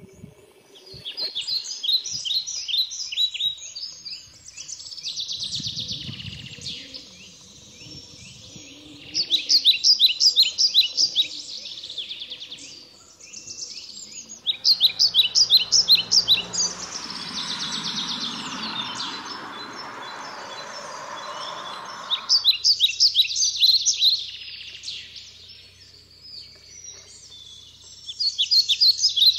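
Songbirds singing in short, fast trilled phrases that repeat every few seconds. A steady rushing noise runs underneath for several seconds in the middle.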